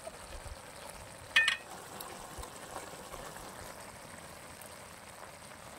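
Steady background hiss, with one brief high-pitched squeak about a second and a half in.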